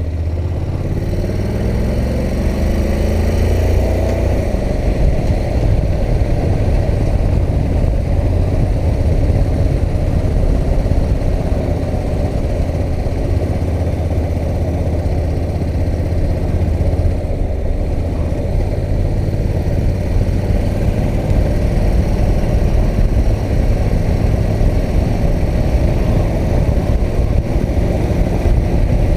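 Honda NC700X motorcycle's parallel-twin engine pulling with its pitch rising over the first few seconds, then running steadily.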